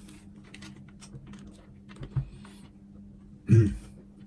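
Small clicks and rattles of a multimeter and its test leads being handled, with a low steady hum behind, a soft knock about two seconds in and one louder, lower sound about three and a half seconds in.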